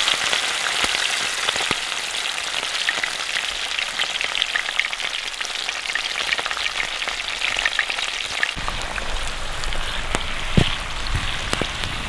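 Catfish steaks frying in hot grease in a cast-iron skillet: a steady sizzle full of fine crackles and spits. A low rumble joins about two-thirds through, and there is a single dull knock near the end.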